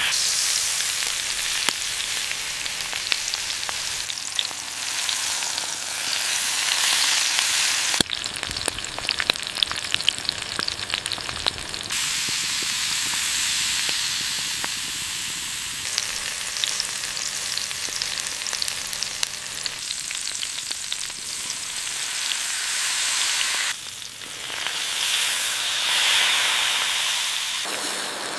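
Ribeye steak sizzling as it sears on a hot stone, a dense hiss with scattered sharp pops. The sizzle changes abruptly every few seconds, as short takes are cut together.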